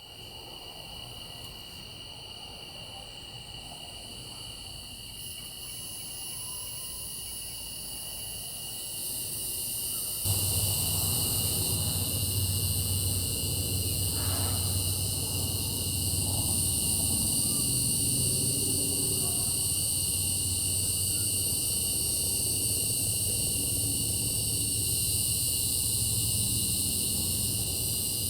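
Night chorus of cicadas: a steady, high, shrill trilling made of several constant tones. About ten seconds in it jumps louder and fuller, and a low hum joins underneath.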